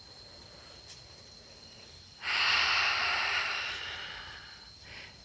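A long audible exhale, a breath out that starts sharply about two seconds in and fades away over about two and a half seconds. A faint steady high insect tone runs underneath.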